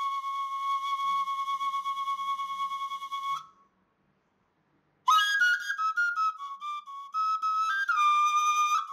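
A solo flute holds one long steady note, which stops about three and a half seconds in. After about a second and a half of silence, the flute comes back with a phrase of short notes stepping up and down.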